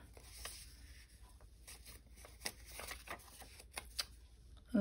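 Small paper and cardstock ephemera pieces rustling and flicking against each other as they are handled and sorted by hand, in faint, scattered short strokes.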